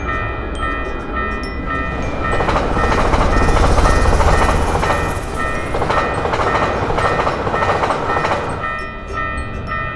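Japanese level-crossing warning bell ringing, an electronic ding repeating about twice a second, while a train passes. The train's rushing rumble swells about two seconds in, drowns out the bell, and fades near the end.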